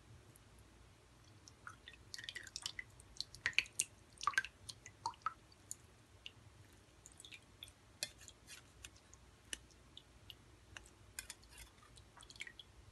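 Stainless-steel potato masher pressing soft boiled bottle gourd in a wire-mesh strainer: faint wet squishes and scattered small clicks of metal on the mesh.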